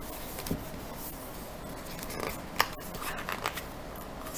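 Pages of a picture book being turned and handled: paper rustling with a few sharp flicks, the loudest about two and a half seconds in.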